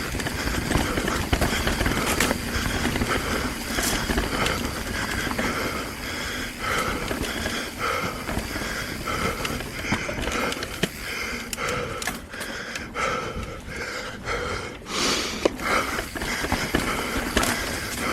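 Mountain bike rolling fast down rough singletrack: steady tyre and trail noise, broken by frequent sharp knocks and rattles as the bike hits rocks and roots.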